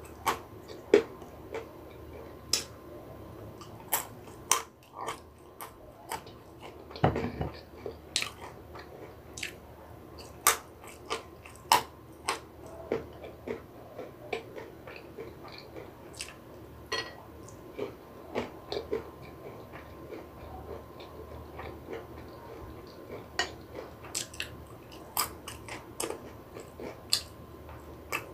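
Close-miked chewing of walnuts and almonds: irregular sharp crunches and clicks as the nuts break between the teeth.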